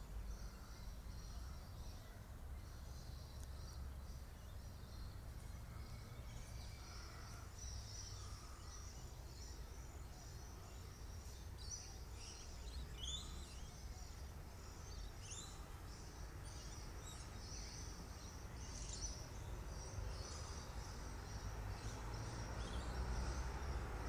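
Small birds chirping faintly, many short high calls that come thicker about halfway through, over a steady low outdoor rumble.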